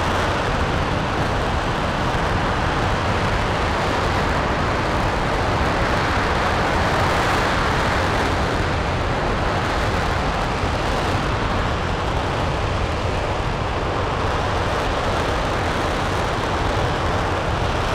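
RS-25 liquid-hydrogen rocket engine, developmental engine E0525, firing steadily in a hot-fire test: a loud, even rush of noise that holds without change.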